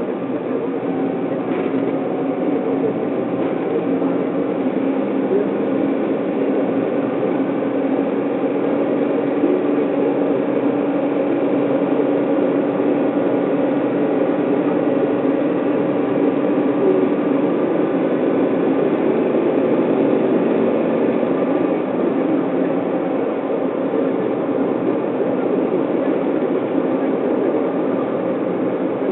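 Car driving at a steady speed, heard from inside the cabin: a constant mix of engine hum and tyre and road noise.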